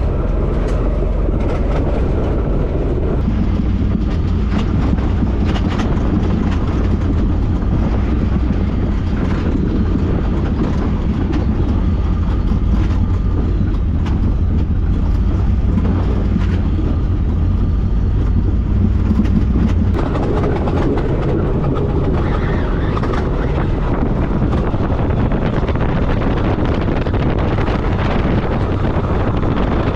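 Side-by-side UTV engine running at low speed, a steady low rumble with rattles and knocks from the machine working over a rough, rocky trail. The sound changes abruptly about three seconds in and again about twenty seconds in.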